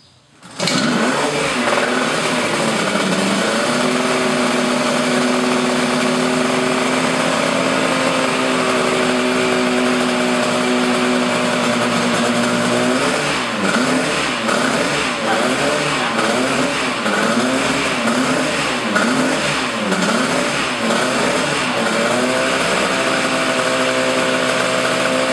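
Yamaha TZ250 two-stroke racing motorcycle engine firing up about half a second in and running steadily on the stand. About halfway through the rider blips the throttle over and over, the revs rising and falling roughly once a second, then it settles back to a steady, slightly higher idle near the end.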